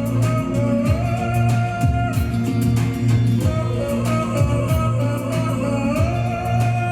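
A woman singing a Russian folk song in a low, droning voice over instrumental accompaniment with a steady bass; her held notes slide upward about a second in and again near the end.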